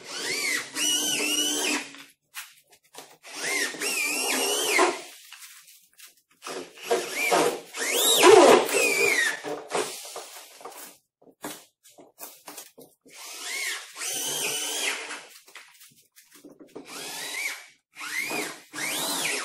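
Cordless drill driving screws into the wooden panels of a shipping crate. It runs in about five bursts of one to three seconds each, and the motor's whine rises and then falls in pitch during each burst.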